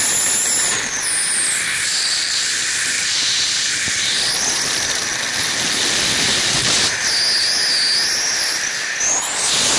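Rushing wind buffeting a helmet camera's microphone at a skydiving aircraft's open door and in freefall: a loud, steady hiss with whistling tones that slide up and down.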